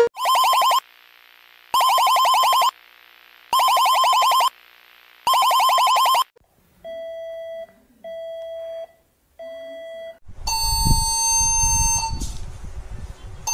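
A run of electronic emergency alarm tones: four loud bursts of a rapidly pulsing high tone, each under a second long, then three quieter, lower plain beeps. About ten seconds in, a steady alert tone begins over a low rumbling noise.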